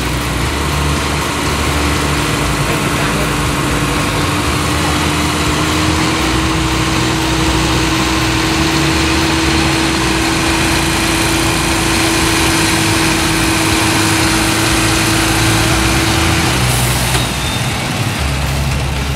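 Heavy truck's diesel engine running steadily at idle as the rig creeps along, with a steady whine over it that stops near the end. A short hiss follows just after.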